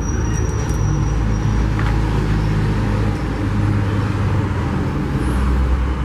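Steady low rumble of motor traffic, with a couple of faint clicks.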